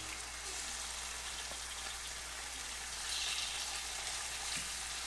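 Yellowtail snapper fillets sizzling in hot oil in a frying pan as they are laid in one after another. The sizzle grows louder about three seconds in.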